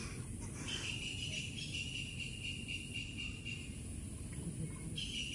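An insect calling with a steady, high-pitched trill: it starts just under a second in, stops after about three seconds, and starts again near the end. A fainter, higher insect hiss continues underneath.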